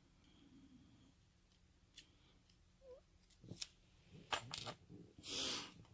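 Small metallic clicks and taps of tweezers and tiny brass lock pins being handled and set down while a padlock's pin stacks are taken out, with a short soft hiss about five seconds in.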